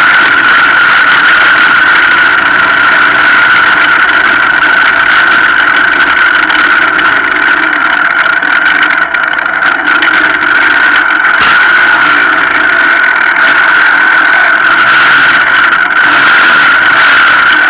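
A strange, loud, steady high-pitched whine holding one pitch, over a constant hiss, with a brief dip about halfway through.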